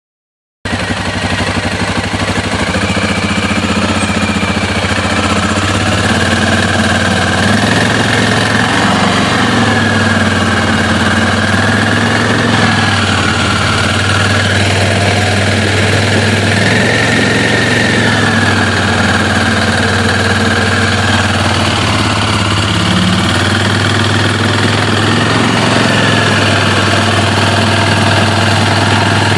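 2013 Suzuki KingQuad 750 ATV's single-cylinder four-stroke engine idling steadily. The CVT belt housing is shaking hard at idle, which the owner suspects comes from bad motor mounts.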